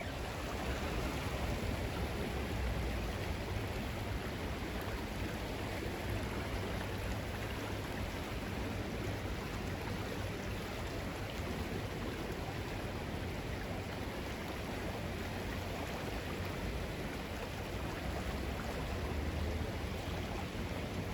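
Steady rush of flowing creek water, with a low rumble underneath.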